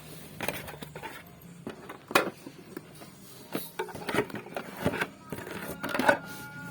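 Irregular clicks, knocks and scraping from handling packaging and hard boxes that have arrived broken, with one sharp click about two seconds in.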